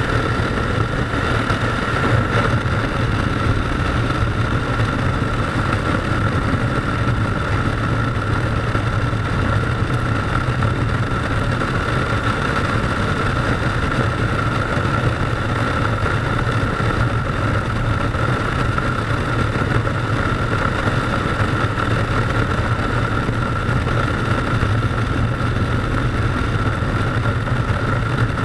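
Motorcycle engine running steadily on the move, its drone with a steady whine above it under an even rush of wind and road noise; no revving or gear changes stand out.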